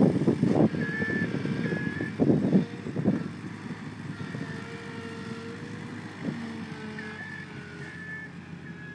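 Avant 635 compact loader with a Kubota diesel engine running while it dumps brush from its 4-in-1 bucket, with loud rustling crashes in the first three seconds. It then backs away, running more quietly with a steady hum, while a reversing alarm beeps about every half second, clearest near the end.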